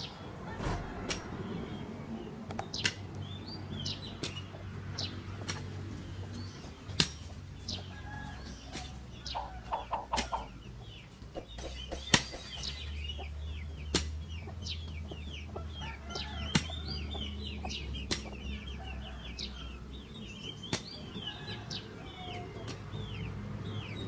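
Hoe blade chopping into dry soil every one to two seconds, each stroke a short sharp knock, with chickens clucking and small birds chirping.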